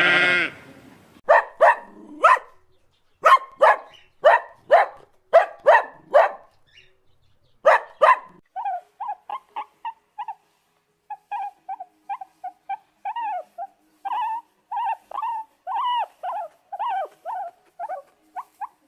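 The end of a fallow buck's deep groan, then a dog barking in loud, sharp single barks, about two a second, for several seconds. These give way to a long run of quicker, higher yaps from a dachshund puppy barking at its own reflection.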